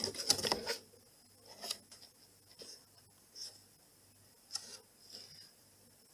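A hand rubbing and scratching on the side of a cardboard box in short scratchy strokes, loudest in the first second, then fainter strokes about once a second.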